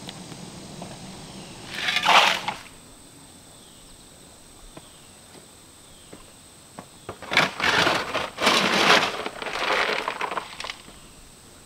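A steel shovel scraping into dry, stony dirt and tipping loads into a wheelbarrow: one scoop about two seconds in, then a run of several scrapes and dumps in the second half.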